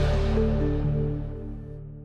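Background music of soft, sustained tones, fading out over the last second.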